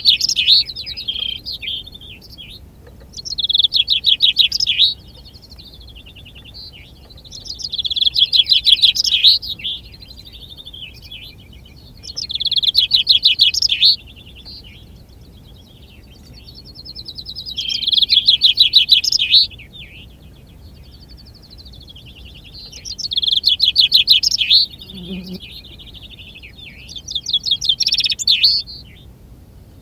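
A contest chaffinch singing its full song over and over, seven times, about once every four to five seconds: each song a rapid, loud, high trill ending in a short flourish. These are the repeated songs that are tallied in a finch-singing contest.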